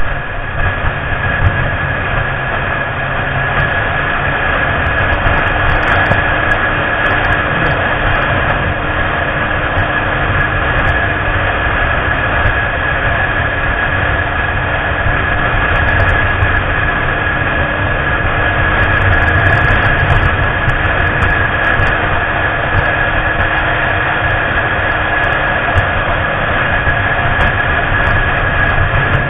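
Yamaha YZF-R6 inline-four sport bike riding at a steady speed, with the engine running and wind noise over the bike-mounted microphone. The sound holds steady, with no revving up or down and a constant high whine.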